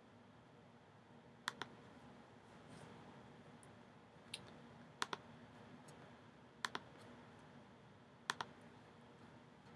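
Faint, sharp clicks at a computer, in five groups spread over several seconds; four of them are quick pairs a split second apart, like double-clicks.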